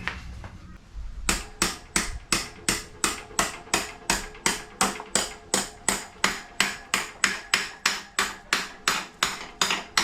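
A hammer striking repeatedly at an even pace, about three blows a second, each with a short ring. The strikes begin about a second in.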